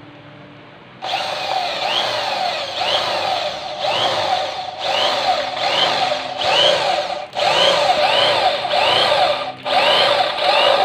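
Electric drill boring a hole through thick plywood. It starts about a second in and runs steadily, rising and falling in a regular rhythm about once a second, with three short breaks.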